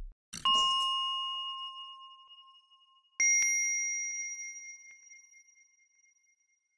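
Two bell-like chimes, one about half a second in and a higher one about three seconds in, each ringing out and fading over about three seconds, the first with a short swish at its start.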